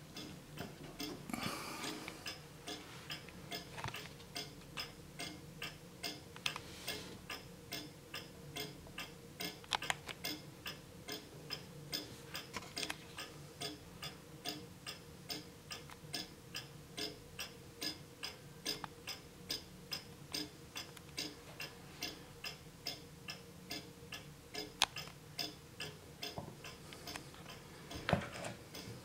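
An 1850 J&A Jump eight-inch drop dial wall regulator ticking steadily, the even beat of its fusee movement's half-deadbeat escapement. A couple of louder knocks come near the end.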